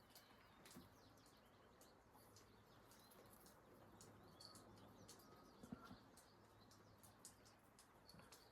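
Near silence: faint outdoor ambience with scattered short, high-pitched bird chirps.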